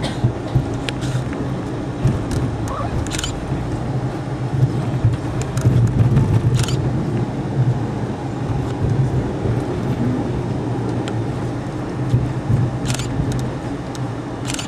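Passenger train rolling steadily along the track, heard from aboard: an even low rumble with a few sharp clicks scattered through it.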